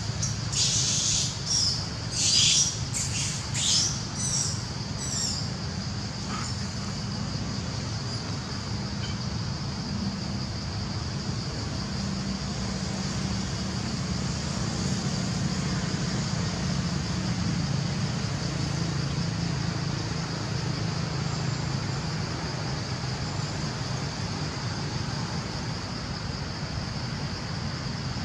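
Forest ambience: a steady high hiss with a low rumble underneath. Over the first five seconds, a run of short shrill animal calls, about two a second, fading out.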